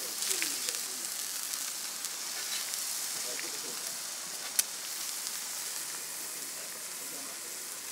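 Fried eggs and beef patties sizzling on a hot flat-top griddle, a steady high hiss, with one sharp click about four and a half seconds in.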